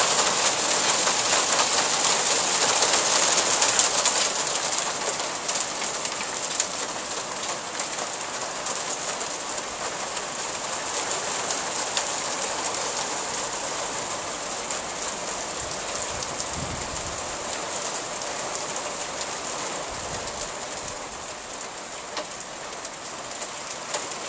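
Hail falling hard on a deck, pelting a vinyl-covered barbecue and a patio table: a dense patter of small hits, heaviest in the first few seconds and then easing slightly.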